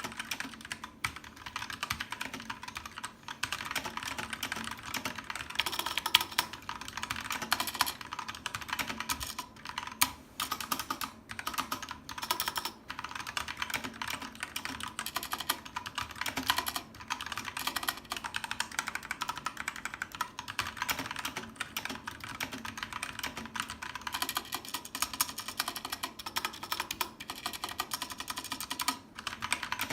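Input Club K-Type mechanical keyboard with Halo True switches being typed on: a fast, nearly continuous stream of key clicks with a few short pauses.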